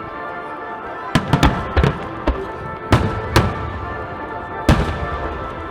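Fireworks bursting in sharp bangs: a quick run of them between about one and two and a half seconds in, two more about three seconds in, and a last single bang near the end, over steady background music.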